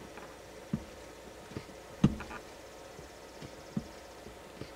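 Soft, irregular thumps and clicks, about six in under five seconds with the loudest about two seconds in, from the accelerator pedal being pressed and released during a key-on throttle test.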